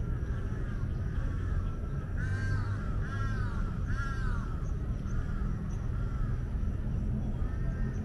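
Crows cawing repeatedly, three louder caws about a second apart a couple of seconds in and fainter caws through the rest, over a steady low rumble.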